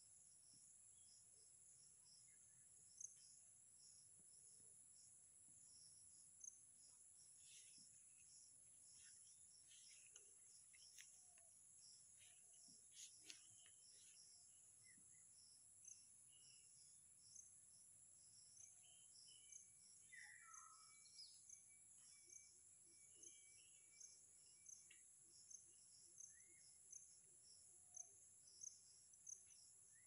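Faint, steady high-pitched drone of insects such as crickets, with short repeated high chirps that come more and more often toward the end. A few faint bird calls are mixed in.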